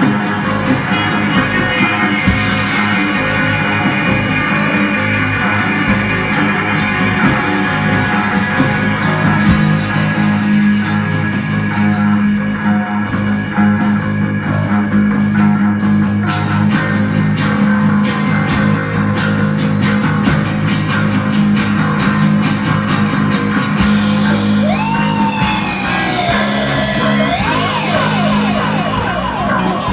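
Psychedelic rock band playing an instrumental passage live: electric guitar over a held bass line and drums. In the last few seconds a high guitar line slides up and down in pitch, then wavers quickly.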